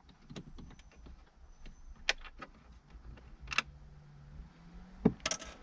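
Self-tapping screws being undone from a car's plastic dashboard trim: scattered clicks and knocks of the screwdriver and screws, with a short steady low hum about midway.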